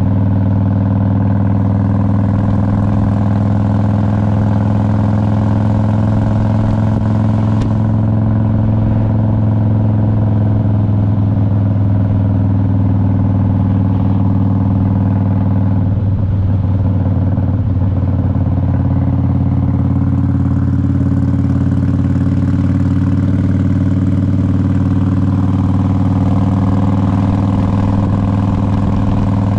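Harley-Davidson Road King's V-twin engine running at a steady, nearly constant pitch while the motorcycle is ridden. The note briefly wavers about halfway through.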